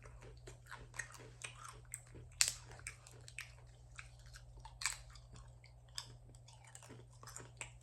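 Close-miked chewing of a chicken and cheese quesadilla, with many small wet mouth clicks and two louder clicks about two and a half and five seconds in.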